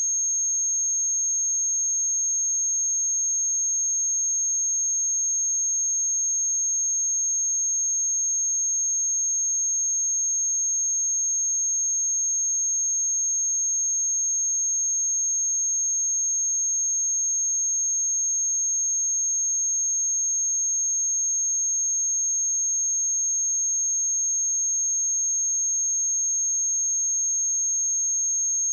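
A steady, unbroken 6471 Hz sine-wave test tone: one pure high-pitched whistle at constant loudness.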